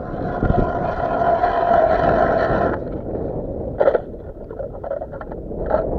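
Hand ice auger drilling through thin first ice: a steady grinding scrape of the blades for nearly three seconds that then stops. Two short knocks follow.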